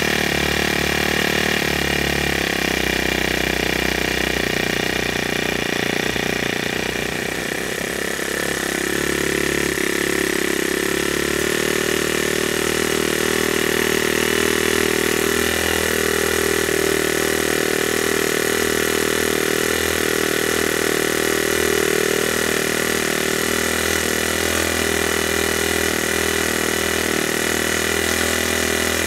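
Ryobi S430 30cc four-stroke overhead-cam string trimmer engine running steadily, its speed sagging briefly about seven seconds in and then settling again.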